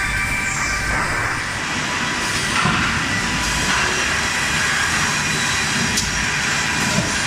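Industrial wood planing line running at full production: a continuous dense clatter of machinery with several steady whining tones over it, and a couple of sharp clacks near the end.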